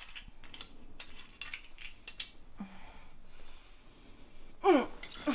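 A scatter of small clicks and rustles, then near the end a brief, loud voice sound that falls in pitch.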